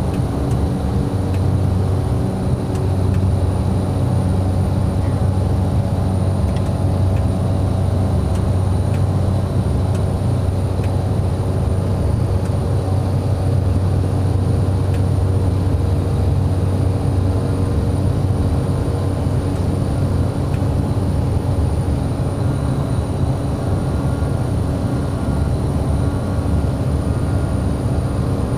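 Cessna Caravan amphibian's Pratt & Whitney PT6A turboprop and propeller running steadily at takeoff and climb power, heard from inside the cockpit: a loud, even low drone with a thin high whine above it.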